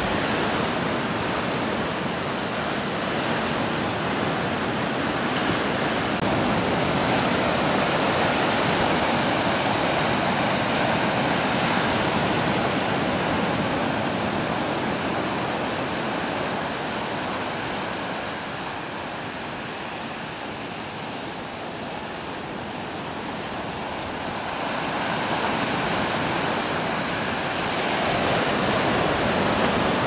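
Caribbean Sea surf breaking against the shore: a continuous rush of waves and foaming white water. It swells louder in the first half, eases about two-thirds of the way through, then builds again near the end.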